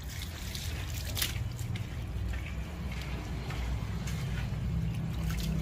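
Water from a garden hose splashing and trickling over a wet dog's coat and onto concrete, with drips and small splashes as the dog is rinsed and rubbed down.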